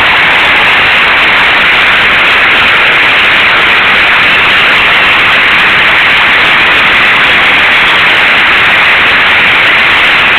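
Loud, steady rushing noise like static, with no change in level.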